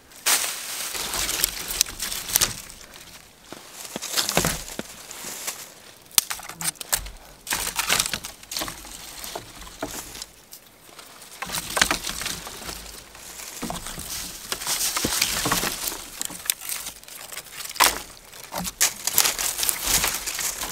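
Dry branches and twigs being laid and pushed into the rib work of a debris-shelter frame: bursts of rustling and crackling twigs with sharp knocks of stick against stick.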